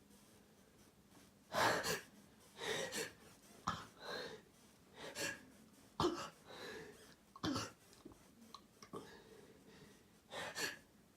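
A person's short, sharp breaths and gasps, eight or nine in irregular succession: the hitching build-up to a sneeze.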